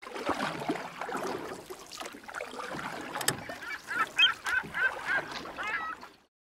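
Birds calling: a quick series of short repeated calls in the second half, over a mixed background, and the sound cuts off suddenly shortly before the end.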